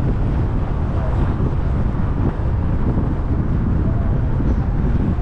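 Wind buffeting a GoPro's microphone while driving, over a steady rumble of road and engine noise.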